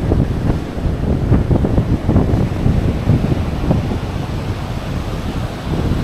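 Wind buffeting the microphone in uneven gusts, with ocean surf breaking behind it.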